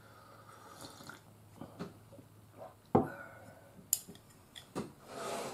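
Scattered light clicks and knocks of chopsticks and tableware being handled, the sharpest knock about three seconds in, with a short rustle near the end.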